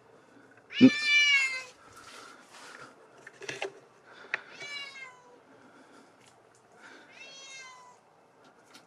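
Domestic cat meowing three times, a few seconds apart, the first call the loudest.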